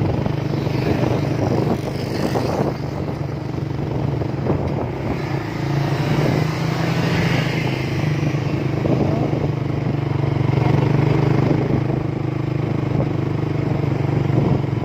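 Motorcycle engine running steadily under way, its pitch shifting slightly now and then, with road and rushing-air noise.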